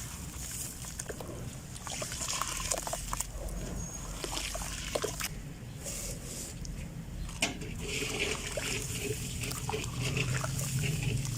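Wet red dirt shapes crumbling into water, with scattered small crackles and soft splashes and trickles.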